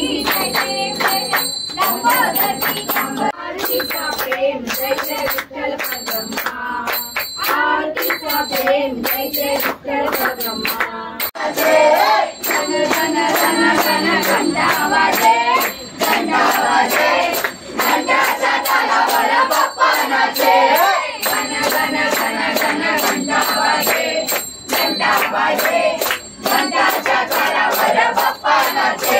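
Devotional Ganesh aarti music: singing over a steady clapped beat, with bright bells ringing throughout.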